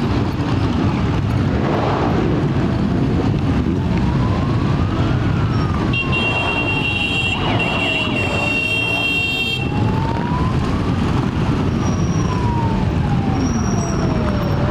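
Parade of motorcycles and cars passing at low speed in a continuous engine rumble, with a siren wailing slowly up and down, rising and falling about every three seconds. A shrill, high-pitched horn-like tone sounds from about six seconds in for roughly three and a half seconds.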